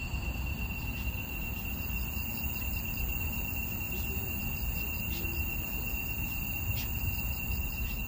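Steady high-pitched chorus of night insects, over the low rumble of wind on the microphone.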